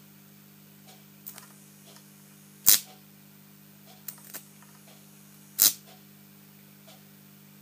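High-voltage sparks snapping at a compact fluorescent lamp fed 240 V mains with about 5 kV superimposed: two loud, sharp snaps about three seconds apart, each led by fainter crackles, over a steady low hum.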